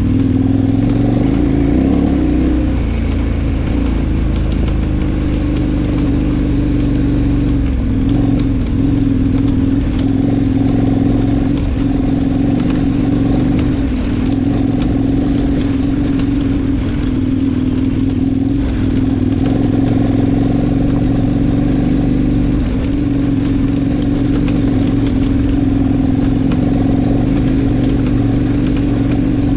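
KTM adventure motorcycle engine running at a steady, nearly unchanging pitch while riding, over a low rumble of wind and road noise.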